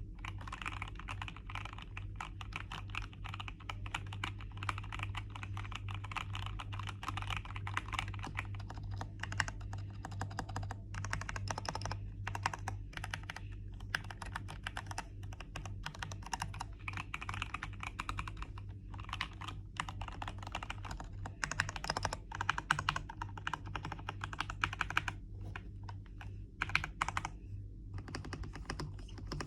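GMK67 mechanical keyboard with its newly installed switches and keycaps being typed on quickly: a dense, continuous run of key clacks, with a few short pauses.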